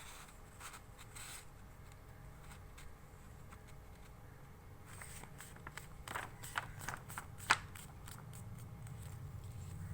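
Sheet of A4 paper rustling and crinkling as it is folded in half and creased, with a run of sharp crackles about six to seven and a half seconds in, the last the loudest.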